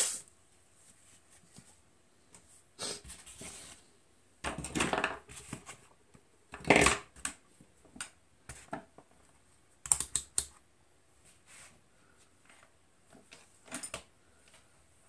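Handling noise on a workbench: irregular clicks and clatter, in several separate short bursts, as hand tools are picked up and a digital multimeter with its test leads is set down.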